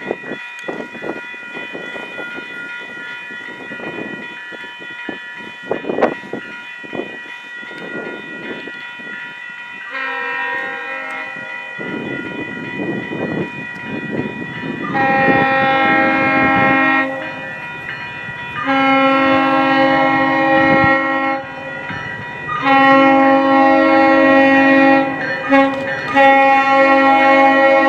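GO Transit cab car 252 sounding its fouled horn for the level crossing as the train approaches: a several-note horn chord in a series of long blasts, faint at first and much louder from about halfway through, with short breaks between blasts.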